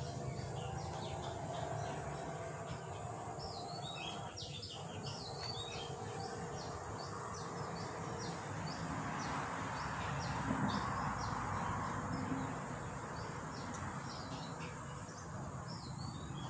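Small birds chirping outdoors: many short, high calls repeated throughout, thickest about three to five seconds in, over a steady background noise that swells briefly about ten seconds in.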